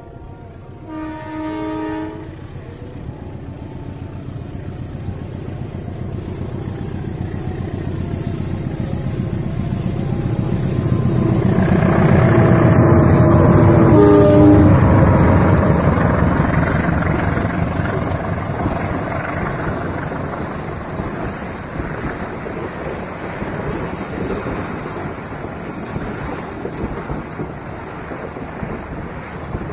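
A diesel locomotive's horn sounds briefly about a second in. Then the engine's rumble grows as the train approaches and is loudest as the locomotive passes. The passenger coaches follow, their wheels rolling on the rails as the sound slowly fades.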